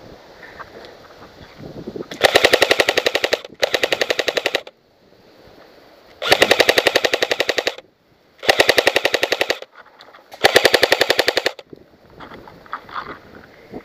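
G&G L85AFV electric airsoft rifle firing five full-auto bursts of about a second each: the fast, even rattle of the gearbox cycling.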